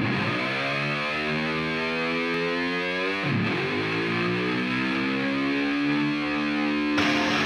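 Distorted electric slide guitar imitating a motorcycle revving. Its pitch dips and climbs back up twice, and near the end the band comes in with strummed guitar.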